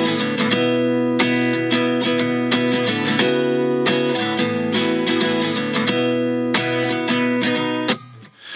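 Background music: strummed acoustic guitar chords, dropping out briefly near the end.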